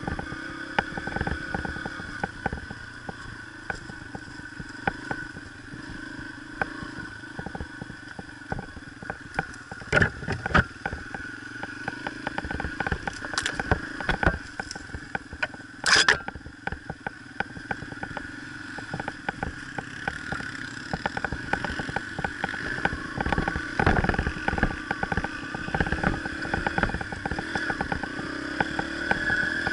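A Yamaha TTR125's small single-cylinder four-stroke engine runs steadily on a dirt trail ride, with frequent knocks and rattles as the bike bumps over rough ground. A few sharper cracks stand out, the loudest about 16 seconds in.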